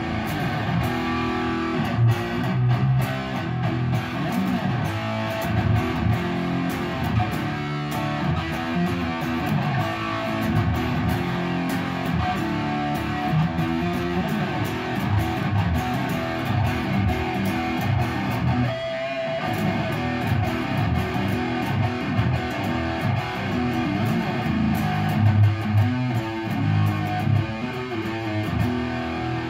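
A cheap red Ibanez electric guitar, rewired and set up again, played through an amplifier: a continuous run of picked single-note lead lines and sustained notes, with a brief break about two-thirds of the way through.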